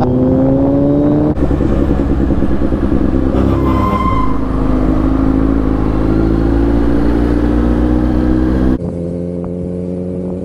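Kawasaki Z900's inline-four engine running under way in traffic, its pitch rising slowly as it pulls. A brief higher tone sounds about four seconds in, and the sound turns duller near the end.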